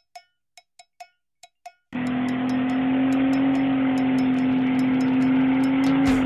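A few short, light metallic pings, then, about two seconds in, a car engine starts suddenly at high, steady revs held while the tyres spin in a burnout.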